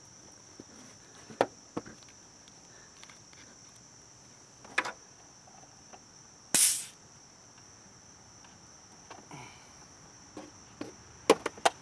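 A steady high-pitched drone of insects, with scattered sharp clicks and knocks and one short, loud burst of noise about six and a half seconds in.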